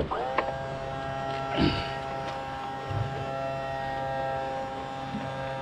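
Boat's electric trolling motor switched up to speed, running with a steady electric buzz. It starts abruptly and settles onto one steady pitch. A brief rush of noise comes about a second and a half in.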